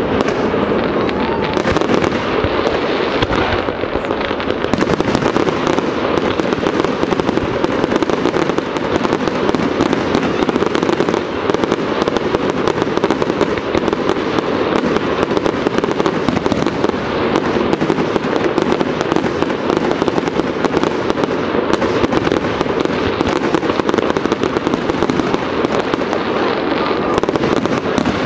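Aerial fireworks display: shells rising and bursting one after another in a dense, unbroken run of bangs and crackles.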